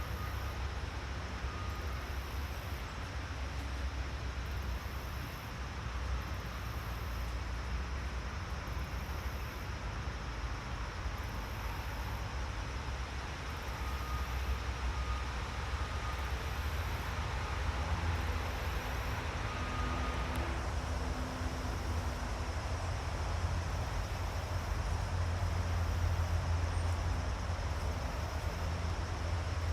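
Steady outdoor forest ambience dominated by a low rumble with a hiss over it, growing a little louder in the second half, and a few faint short high tones now and then.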